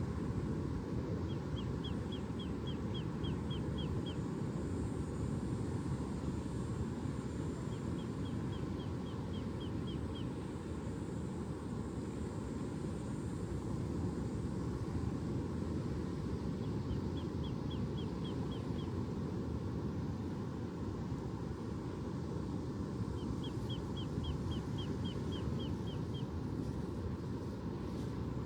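Steady low rush of ocean surf. A small bird sings a quick trill of high chirps four times over it.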